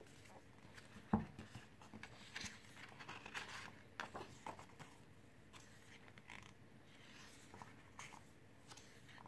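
Faint handling of a softcover photobook: a single sharp knock about a second in as the book is laid on the wooden table, then soft paper rustling and small ticks as its pages are opened and turned.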